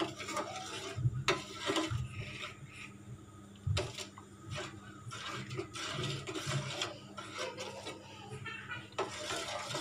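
Steel ladle stirring and scraping around a stainless steel pot of thickening soup, with a few dull knocks. The soup is kept stirred nonstop so the gram-flour slurry just added does not clump.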